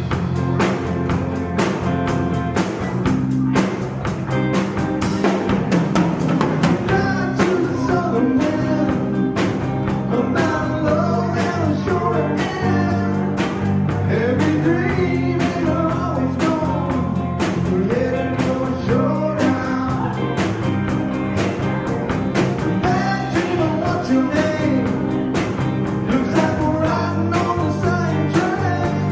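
Live rock band playing a song at full volume, with electric guitar, bass and drum kit, and a singer's voice over them.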